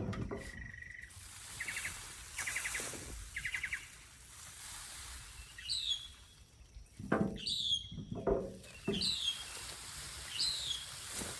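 Small birds calling: three short, rapid trills early on, then short falling chirps repeating about once a second through the second half. A few low scuffs and knocks sound under them around the middle.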